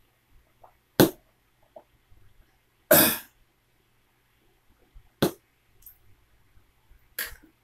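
A person coughing and clearing their throat in four separate bursts, the second the longest, right after gulping down a drink.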